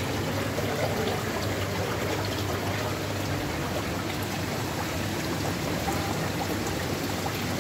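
Steady running, trickling water with a low hum underneath.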